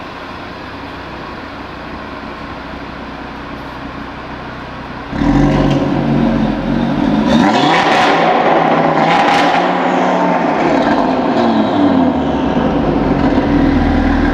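Audi RS3's five-cylinder engine. After a steady low noise, it cuts in loudly about five seconds in, revs up and back down, then runs steadily near the end.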